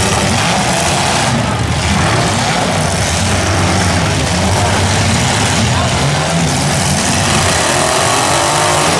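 Several compact cars' engines running and revving hard together as they ram each other in a demolition derby, a dense, steady din of engine noise.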